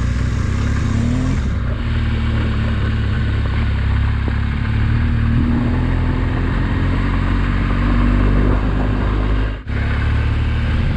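Motorcycle engine running steadily on an offroad ride, its pitch rising and falling a little with the throttle. The sound cuts out for a moment about nine and a half seconds in.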